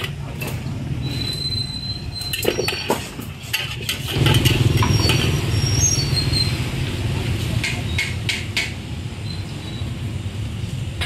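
Metal clanks and scrapes of wok cooking over a charcoal stove, with short high metallic squeals, over a steady low rumble of motorbikes and traffic on the street. The clanks come mostly in the first three seconds and again briefly around eight seconds in.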